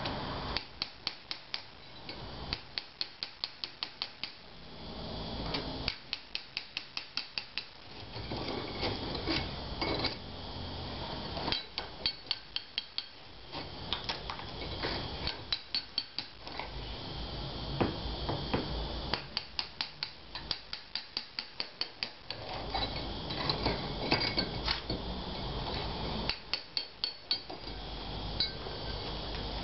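Hammer striking a plugging chisel to rake lime mortar out of a vertical brick joint: runs of quick, sharp metallic blows, about five a second, broken by short pauses.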